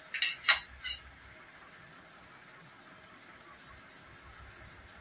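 Tableware clinking three times in quick succession during a meal, within the first second, the middle clink loudest. Then only faint room tone.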